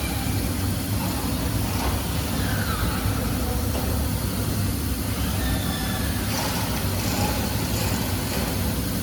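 Steady low machine hum of a large industrial laser processing machine running, with faint whines that slide up and down in pitch and a few light clicks.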